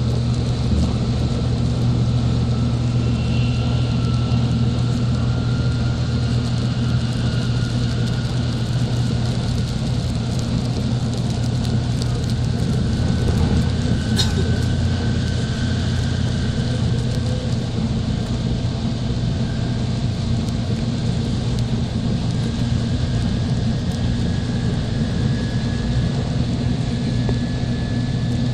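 Inside an N700 series Shinkansen car: the train running with a steady low rumble and a faint whine that climbs slowly in pitch as it picks up speed after a slow-running section. A single short click about halfway through.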